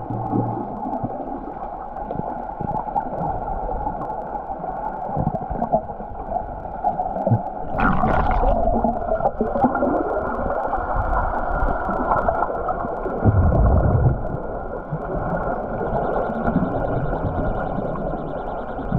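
Underwater swimming-pool sound picked up by a submerged camera: a continuous muffled wash of water and swimmers moving. A brief hiss comes about eight seconds in, and a heavier low rumble about thirteen seconds in.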